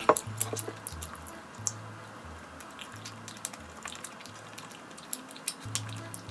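Close-miked mukbang eating sounds: scattered small clicks of biting and chewing a dessert, with a sharper tap right at the start. Quiet background music with a repeating bass note runs underneath.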